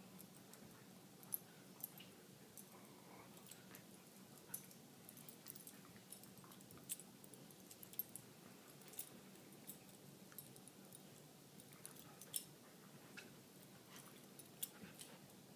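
Two dogs play-wrestling on a blanket, heard only faintly as scattered light clicks and jingles through a near-silent room, with no barking or growling.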